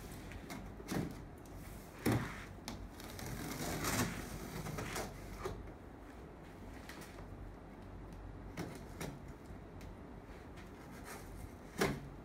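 Large cardboard TV box being handled and shifted, with scattered knocks and a longer scraping rustle of cardboard a few seconds in, and a sharper knock near the end.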